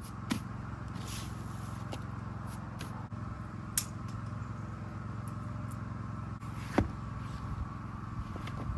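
A steady engine or motor hum, with a few sharp clicks or knocks breaking through it.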